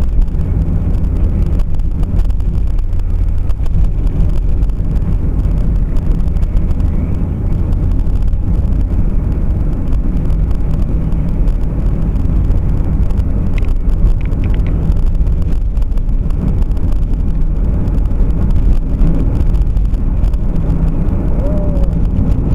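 Steady low rumble of motor vehicle and road noise.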